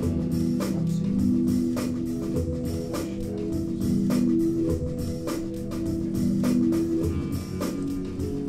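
Recorded music played back over Amphion Argon loudspeakers driven by a Hegel integrated amplifier: a steady beat over sustained low notes.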